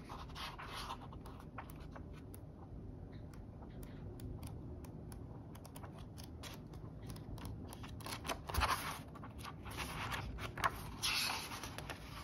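Paper pages of a Traveler's Notebook planner insert being turned and handled: soft scratchy rustles and small taps, with louder page rustles about eight and a half and eleven seconds in.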